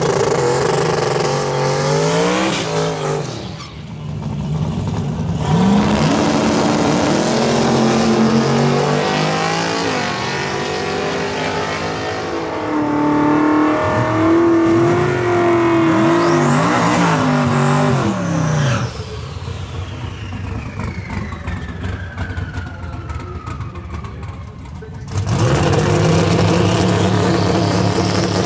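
High-horsepower drag and street cars with their engines revving and accelerating hard, the pitch climbing and falling, in several short stretches that change abruptly. A long falling whine is heard in a quieter stretch near the end.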